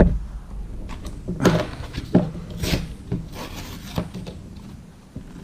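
Product packaging being worked open by hand: irregular rubbing and scraping with a few sharper clicks as it is pried at.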